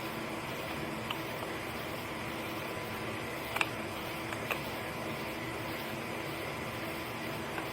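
A few light metallic clicks from hand tools working the screw on a car battery terminal connector, the sharpest about three and a half seconds in, over a steady background hiss.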